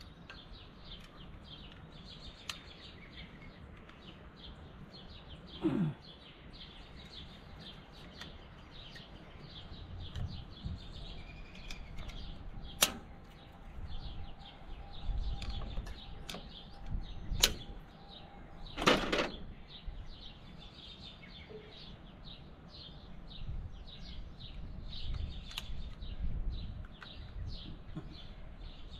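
Birds chirping steadily, with a few sharp clicks and knocks from hands working spark plug wire boots onto the Allis-Chalmers D19's ignition, the loudest three near the middle.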